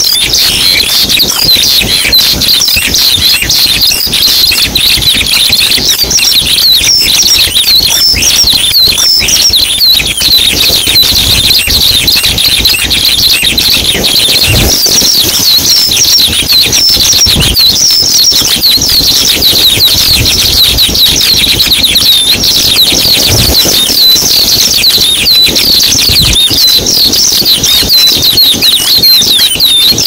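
A dense, continuous chorus of high-pitched chirps, many per second, from small birds. A few dull low thumps come about halfway through and again later.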